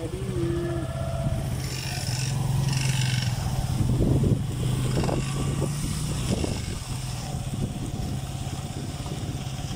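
A vehicle engine running steadily with a low, even hum, with a few short knocks and rattles about four to six seconds in.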